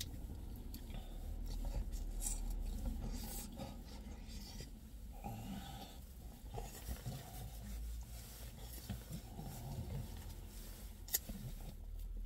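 Close-up chewing and biting of a slice of pizza: irregular soft scraping and mouth sounds over a steady low hum, with one sharp click about eleven seconds in.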